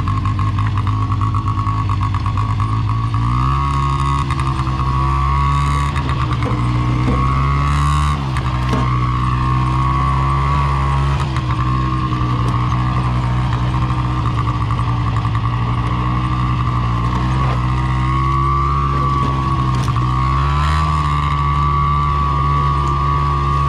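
Small off-road vehicle engine running steadily with a high whine on top. Its pitch steps up about three seconds in, dips around eight seconds, dips again around seventeen seconds and rises again near twenty seconds as the throttle and speed change.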